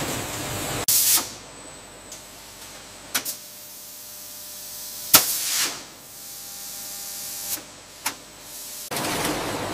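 Machinery on a sugar bagging line: sharp clunks a couple of seconds apart, some followed by short hissing bursts, and a dense steady hiss that sets in near the end.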